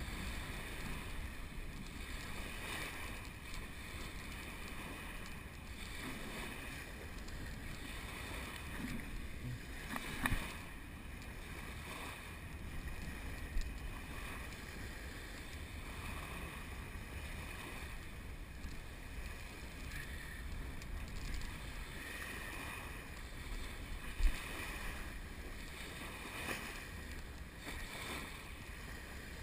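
Wind buffeting a GoPro's microphone over small waves washing onto a sandy shore, with a few brief knocks, the loudest late on.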